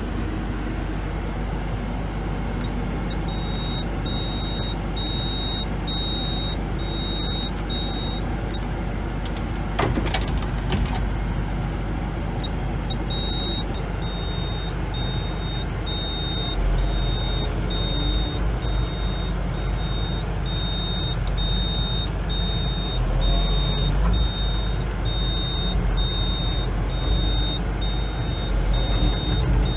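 Hyundai Robex 235 LCR-9 tracked excavator's diesel engine running, heard from inside the cab, with the hydraulics working as the bucket is moved; the low drone gets heavier after about halfway. A high-pitched warning beep pulses rapidly through most of it, stopping for a few seconds around a single sharp knock near the ten-second mark.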